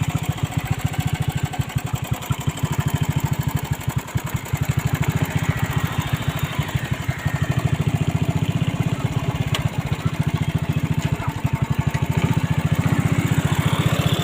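A small engine idling steadily, with a fast, even low pulsing.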